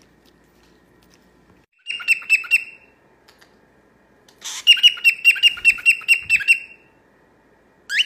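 Cockatiel calling in quick runs of sharp repeated chirps: a short run of about five notes two seconds in, then a longer run of about a dozen notes from about halfway, and a single rising note at the end.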